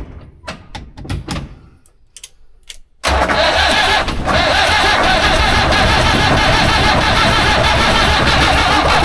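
Old diesel engine starting abruptly about three seconds in, then running loud and steady, with one brief dip a second later. A few short clicks and knocks come before it.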